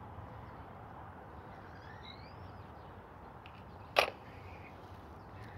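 Low steady background noise with a bird chirping faintly in a few short gliding notes about two seconds in, and a single sharp click about four seconds in.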